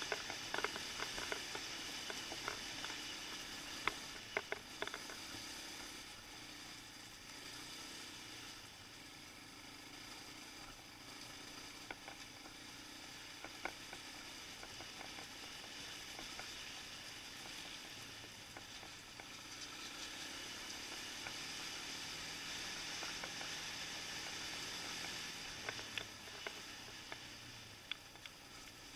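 Riding noise of a Suzuki LTZ 400 quad on a dirt trail: a steady hiss with scattered sharp ticks of gravel, most in the first few seconds and near the end, over a faint engine note that rises and falls.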